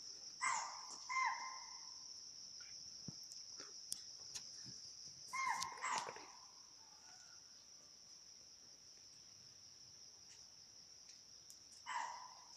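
An animal gives short, sharp barks in pairs, three times: about half a second in, midway, and near the end. Under them runs a steady high trill of crickets.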